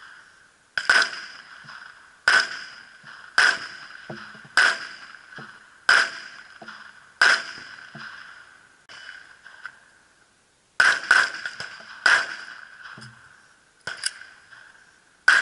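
Pistol shots on an outdoor range. First come six single shots fired at an even pace about a second and a quarter apart, each trailing off in a ringing echo. After a short pause, a faster string follows, with several shots fired in quick pairs.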